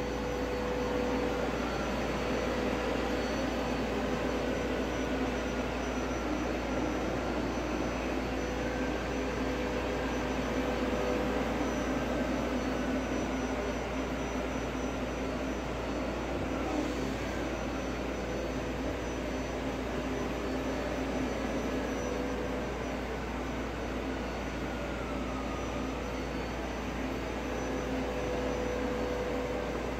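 A steady mechanical drone with a constant low hum and a faint higher tone that wavers slowly up and down in pitch.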